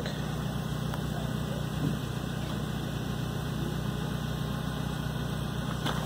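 Steady low mechanical hum with a faint hiss over it from the Tesla Model S, whose heating and thermal system is running while the car warms up and still charges.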